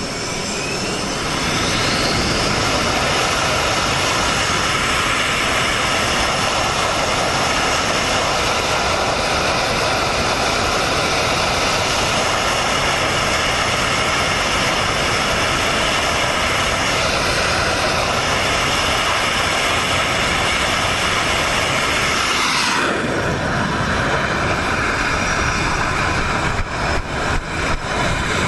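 Carrier fighter jet's engines running at high power on the flight deck, a loud, steady jet roar. A whine rises over the first couple of seconds as the engines spool up. The sound changes abruptly about 23 seconds in, around the catapult launch, and a few short knocks follow near the end.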